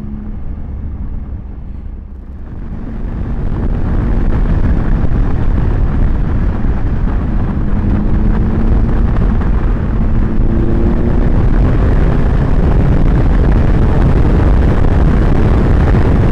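Triumph Tiger 955i's three-cylinder engine running under way as the motorcycle picks up speed, its pitch rising a couple of times. About two seconds in, a loud rushing wind noise on the helmet-mounted microphone swells up and dominates.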